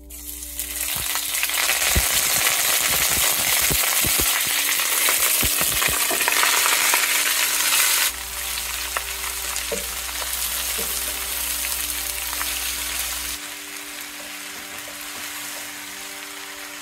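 Curry leaves and a pandan leaf dropped into hot oil with whole spices sizzle loudly, with a run of spatula knocks against the pan. About eight seconds in, it cuts to a quieter sizzle of sliced onions with chili frying while a spatula stirs them.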